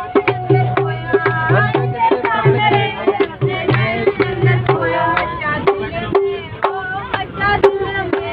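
Hindu devotional bhajan sung by a group to a dholak drum beaten in a steady quick rhythm, its treble head ringing on each stroke, with hand-clapping along.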